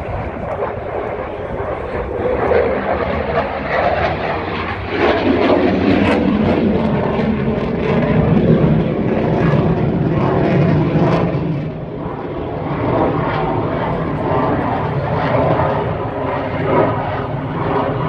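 Saab JAS39 Gripen's single turbofan jet engine passing overhead during a flying display: loud, continuous jet noise that swells about five seconds in and eases briefly later before building again.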